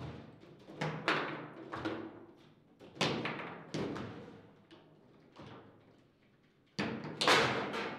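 Table football ball being struck by the rod figures and knocking around the table, with irregular sharp knocks about every second, a short lull, then two hard strikes near the end, the loudest of all.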